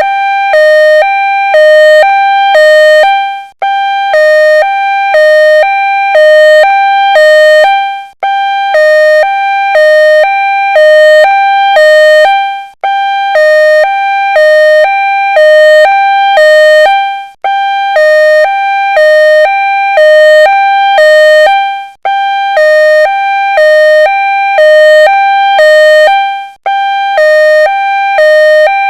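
Ambulance siren sounding a two-tone hi-lo call, two pitches alternating, each held a little under half a second. The sound briefly cuts out and restarts every four to five seconds.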